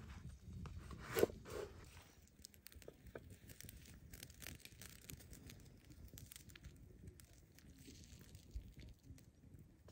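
A large knife cutting through crusty herbed flatbread on a wooden cutting board, with one sharp knock of the blade on the board about a second in. After that, only faint scattered crackling of a wood fire.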